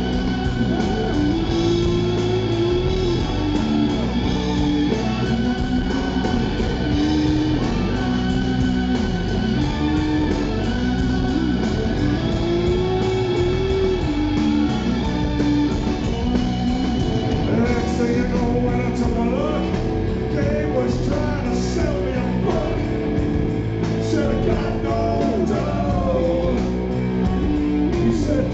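Live rock band recorded from the audience: sustained, wavering keyboard and guitar tones over bass and drums. About two-thirds of the way through, drum and cymbal hits grow sharper and a male voice sings over the band.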